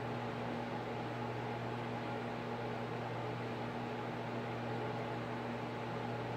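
Steady machine hum with an even hiss, unchanging throughout, with no distinct sounds.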